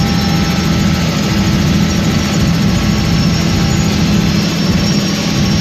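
Robinson R66 turbine helicopter in flight, heard inside the cabin: its Rolls-Royce RR300 turboshaft engine and rotors running steadily as a loud, dense low drone with faint high whine tones above it.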